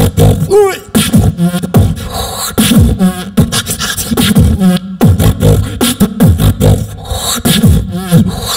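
A beatboxer performing a solo routine through a handheld microphone. It is a fast, dense beat of deep kick-drum sounds that sweep down in pitch, sharp snare and hi-hat clicks, and now and then a warbling, wobbling vocal tone.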